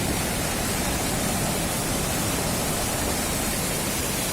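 Steady, unbroken rushing noise spread across all pitches, with a rumble underneath.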